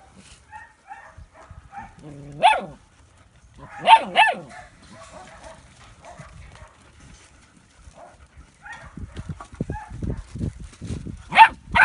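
Puppies barking in play: a single sharp yapping bark about two and a half seconds in, a quick pair about four seconds in, and another near the end, each dropping in pitch, with small yips between. Paws scuffling on gravel toward the end.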